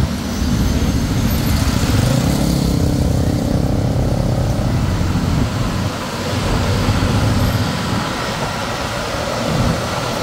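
A motorbike taxi running through busy city traffic, heard from on board: the engine and road noise make a steady, heavy low rumble.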